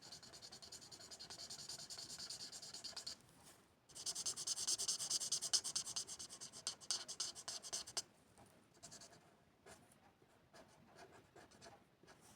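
Rapid scratchy colouring-in strokes on paper. There are two long runs of fast back-and-forth strokes with a short pause between them, then lighter, scattered scratches and taps in the last few seconds.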